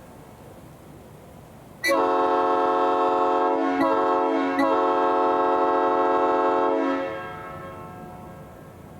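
3D-printed replica Nathan Airchime P5 five-chime train horn sounding one steady blast of about five seconds, starting suddenly about two seconds in, with two small hitches midway before it cuts off and echoes away. Its chord is a custom A major 6th, made with a 370 Hz #3 bell in place of the stock 392 Hz, and it is slightly out of tune: the #4 bell is sharp and the #5 considerably flat.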